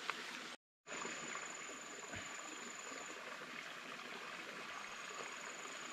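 Even hiss of flowing water outdoors, with a thin, steady high whine heard twice. The sound drops out completely for a moment just under a second in.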